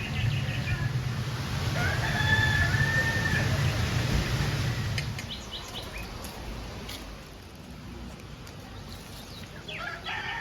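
A rooster crowing, one long call about two seconds in that lasts about a second and a half, with another crow starting near the end.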